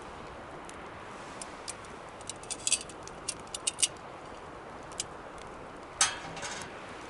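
Wood fire burning with a steady hiss and scattered sharp crackles and pops, a flurry of them in the middle and one loud pop followed by a short crackle near the end.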